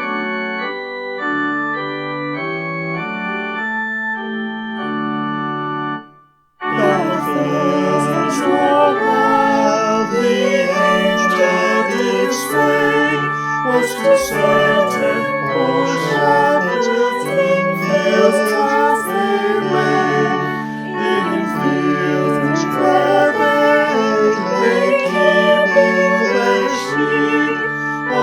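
Organ music: held chords moving in steps, a brief break about six seconds in, then a fuller, louder passage.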